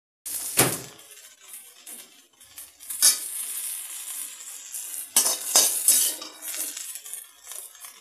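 A slotted steel spatula scraping and clanking against a steel kadhai and bowl as fried okra is scooped out, over a faint sizzle of hot oil. The loudest clanks come about half a second in, about three seconds in, and a cluster between five and six seconds in.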